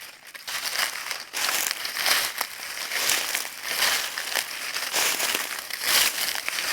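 Footsteps on dry leaves: a crisp crunch and crackle of leaves with each step, at a steady walking pace.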